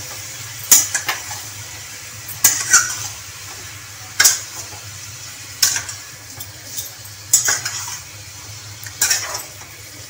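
A metal fork stirring chicken pieces in a stainless steel kadhai, clinking and scraping against the pan about every second and a half, over the steady sizzle of the chicken frying in hot oil.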